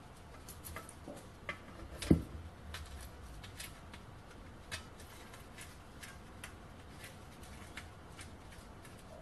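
Small metal parts of a model steam engine kit clicking and tapping as they are handled and fitted together by hand, with one louder knock about two seconds in.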